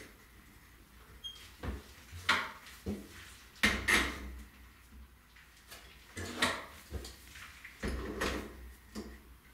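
Pliers gripping and turning a chrome shower diverter to tighten it onto the threaded shower pipe: short metal-on-metal clicks and scrapes in separate bursts, several times.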